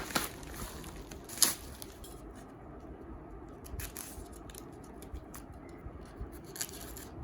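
Parcel packaging being handled and opened: scattered clicks, scratching and small cutting or tearing sounds, with one sharp click about a second and a half in.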